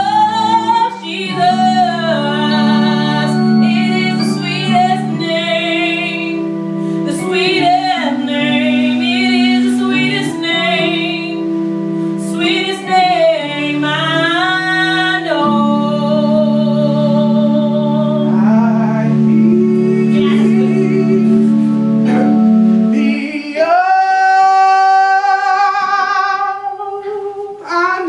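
Live gospel worship music: a female voice sings long, wavering melismatic lines over held keyboard chords. About three-quarters of the way through the chords drop out and the voice holds one long high note.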